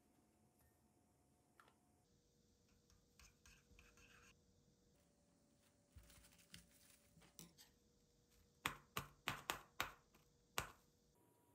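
Plastic cling wrap crinkling softly as it is stretched over a small glass bowl and pressed around the rim, with a run of about six sharp crackles near the end.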